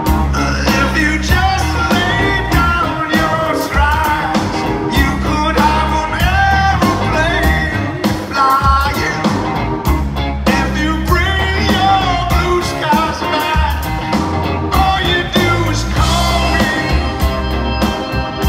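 A rock band playing live, with a male lead singer's vocals over a heavy electric bass line.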